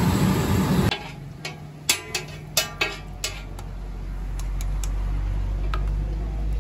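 Loud street noise stops about a second in. Then a metal spatula clicks and scrapes several times against a steel plate and iron griddle, over a low rumble that builds toward the end.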